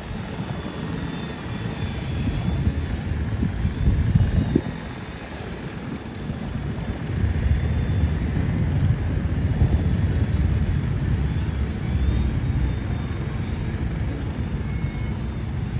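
Wind buffeting the microphone with a gusting low rumble, over the faint buzzing whine of a C186 Pro toy remote-control helicopter in flight. The rumble swells about four seconds in, eases, and picks up again from about seven seconds.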